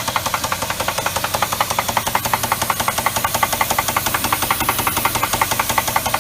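A 2000 Jeep Grand Cherokee's 4.7-litre V8 running with a fast, even, repeated knock from the engine. The owner cannot pinpoint it yet and thinks it comes from down in the oil pan area, though it could be the flywheel.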